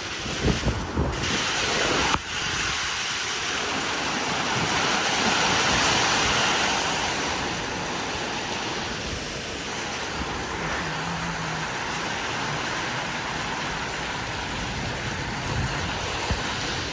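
Heavy thunderstorm rain pouring down with strong wind, a steady hiss that swells a few seconds in. Gusts buffet the microphone with low rumbles in the first couple of seconds, and a sharp click comes about two seconds in.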